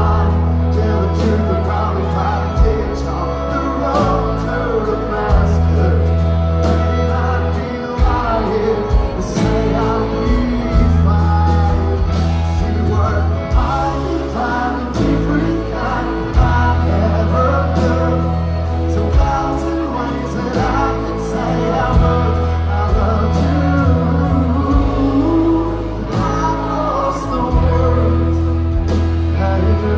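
Live band playing a song, with drums, bass notes changing every few seconds and singing voices.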